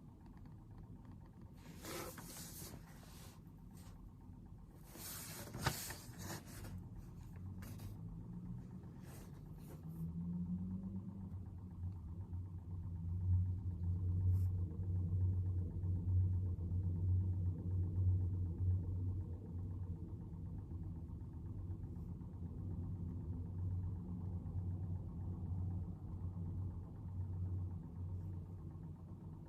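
Low, steady rumble of a vehicle engine running outside. It swells and rises briefly in pitch about ten seconds in, then holds. A few brief rustles come near the start.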